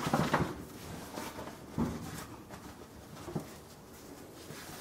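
Faint handling noises of packaging: a few soft rustles and light knocks, spaced a second or so apart.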